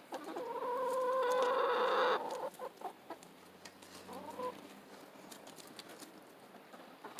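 Backyard hens calling: one long, steady drawn-out call in the first two seconds, then a short rising call about four seconds in.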